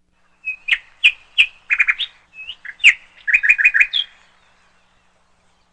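A bird chirping: a burst of sharp, high chirps, many sweeping quickly downward, ending in a fast run of notes, for about three and a half seconds.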